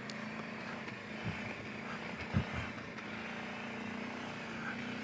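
Kawasaki Brute Force 750 ATV's V-twin engine running steadily under way on the trail, heard faintly as a low drone, with a couple of short low thumps about one and two and a half seconds in.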